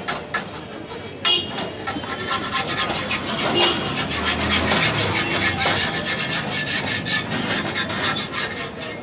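Rapid, repeated scraping strokes against a cast-iron griddle (tawa) as a rice-flour chapti pitha cooks on it, growing denser about two seconds in.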